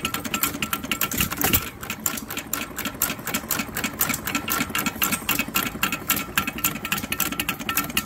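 Antique vertical stationary gas engine running, its valve gear and ignitor clattering in a rapid, even train of clicks.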